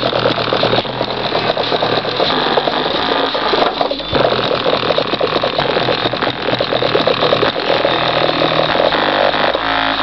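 A bare Pioneer subwoofer driver with no cabinet, driven hard: its cone flaps at full excursion, giving a loud, distorted, rapid rattling buzz over a steady low hum.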